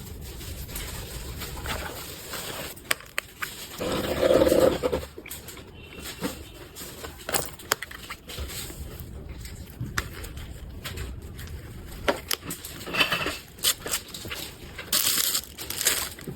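Packaging being handled, with scattered clicks and rustles. About four seconds in there is a brief, louder pitched vocal sound.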